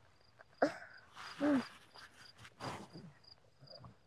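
An insect chirping faintly in a high, evenly pulsed note, about three pulses a second. Over it come a few louder close sounds of a crisp apple being bitten and chewed, with a short voiced hum about a second and a half in.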